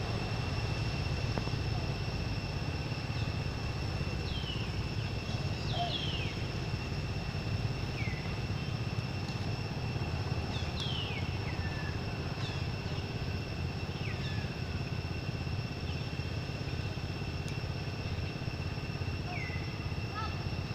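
Outdoor ambience: a steady low rumble under a steady high-pitched whine, with about a dozen short chirps that each fall quickly in pitch, scattered throughout.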